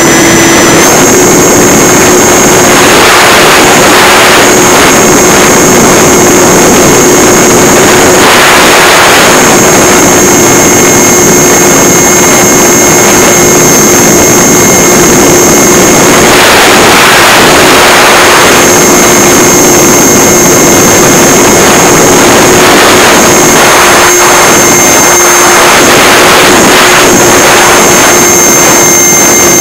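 Electric motor and propeller of a Multiplex EasyStar RC plane running at a steady pitch in flight, heard very loud from a camera mounted in the plane's belly. Wind rushes over the microphone in several louder surges.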